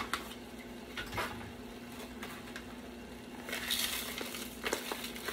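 Dry dirty rice mix being emptied from a paper packet into a pot: a few light knocks of a wooden spoon against the pot, and a short soft hiss of grains pouring about three and a half seconds in.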